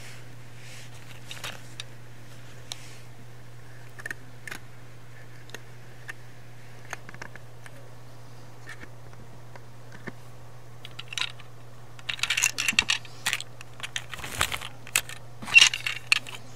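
Small plastic toy locomotives being handled: a few scattered light clicks, then a run of plastic clicks and clatters over the last few seconds as one is picked up and moved. A steady low hum runs underneath.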